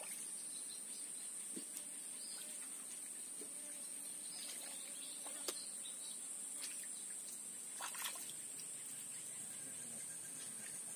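Steady high-pitched insect drone from the swamp, with a few faint bird chirps. A single sharp click comes about five and a half seconds in, and a brief rustle at about eight seconds.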